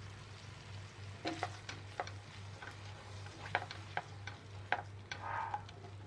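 A spatula stirring and scraping a thick masala with milk in a steel pan, with a dozen or so light taps against the pan and a faint sizzle. A steady low hum runs underneath.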